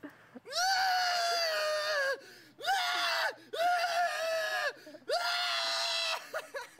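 A young man screaming four times in a row, each high yell held for about a second, with short breaks between them.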